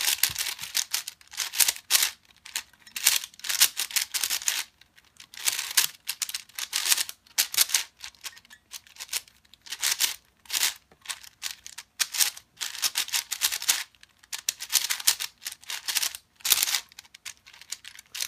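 Cyclone Boys 5x5 plastic speedcube being turned fast by hand: rapid bursts of clicking and clacking from the layers, broken by short pauses. The cube is set up very loosely out of the box.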